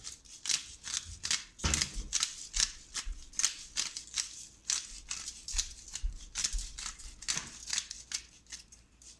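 Black pepper being ground over chicken with a twist pepper grinder: a run of short scratchy strokes, about two a second.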